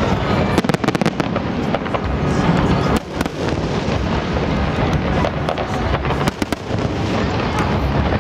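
Fireworks display: a dense, continuous barrage of sharp cracks and bangs over a steady low rumble, with many shells going off in quick succession.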